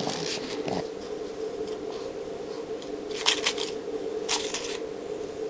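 Folded paper slips rustling and crinkling as they are handled, in two short bursts about three and four seconds in, over a faint steady hum.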